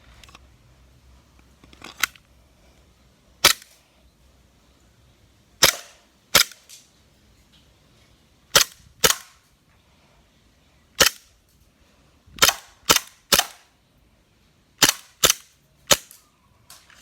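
Airsoft Glock 17 pistol firing single shots, about thirteen sharp cracks at irregular intervals, some in quick pairs and threes.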